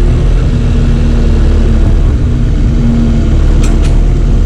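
Engine of a piece of heavy equipment running steadily close up, a deep rumble with a steady hum over it.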